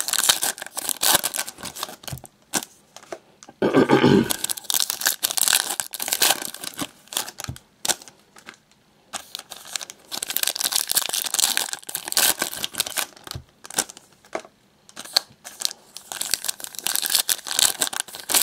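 Foil wrappers of Panini NASCAR trading card packs being torn open and crinkled by hand, in several crackling bursts with short pauses between them.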